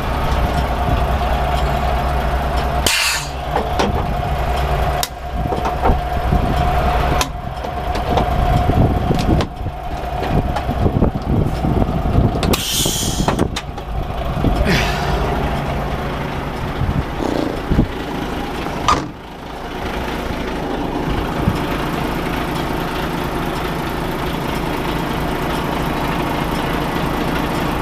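HGV diesel engine idling steadily, with two short bursts of compressed-air hiss, the first about 3 s in and a longer one about 13 s in, as the trailer is raised on air. Knocks and rattles come in between about 7 and 14 s in.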